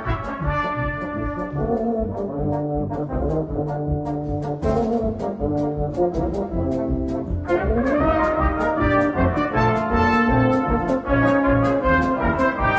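Brass band playing a march: cornets, tenor horns, euphoniums, tubas and trombones over a steady snare and bass drum beat, with a rising run a little past halfway through.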